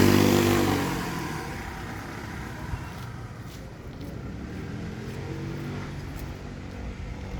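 Street traffic: a motor vehicle's engine passing close by fades away within the first second, leaving a steady traffic rumble with another vehicle passing more faintly in the middle.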